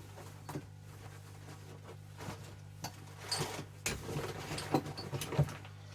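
Small metal hand tools being handled and set down: a few soft, scattered clinks and knocks over a steady low hum.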